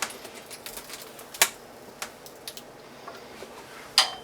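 Thin plastic screen-protector film being peeled and handled: scattered small clicks and crackles, with two sharper snaps, one about a second and a half in and one near the end.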